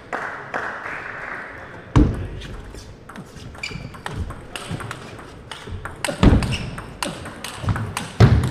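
Table tennis rally: a celluloid-type plastic ball clicking sharply off the paddles and the table in quick succession. A few heavy thuds cut in about two, six and eight seconds in, and these are the loudest sounds.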